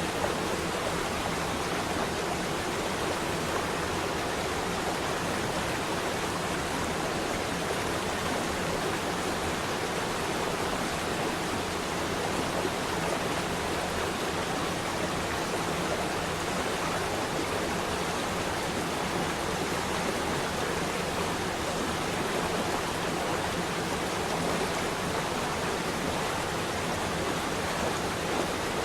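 Flowing water rushing steadily, an even hiss that does not change.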